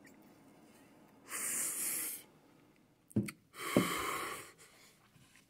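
A man smoking: one drag drawn in as a breathy hiss for about a second, then a second breathy rush about two seconds later as he blows the smoke out, with a couple of small clicks between.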